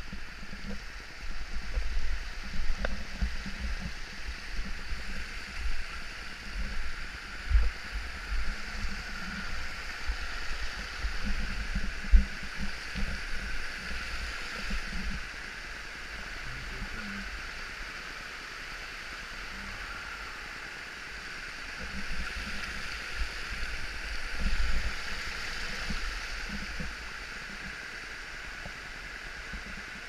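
Steady rush of a creek and a distant waterfall. Irregular low bumps and rumble on the handheld microphone come and go through the first half and again for a few seconds later, with one sharp knock about twelve seconds in.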